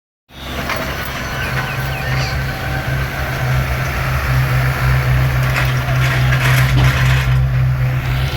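Yanmar SV100 10-ton excavator's diesel engine running steadily under load while digging, with intermittent scraping and knocking of the bucket in soil and stone.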